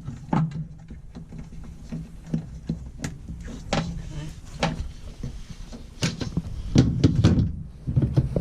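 Irregular clicks and knocks of parts and tools being handled during reassembly of the washer's underside, over a steady low hum. A denser run of knocks comes between about six and eight seconds in.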